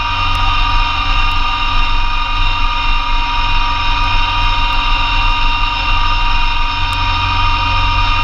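Massey Ferguson GC2300 compact tractor's three-cylinder diesel engine running steadily under load, driving a PTO snowblower, with a steady whine holding one pitch.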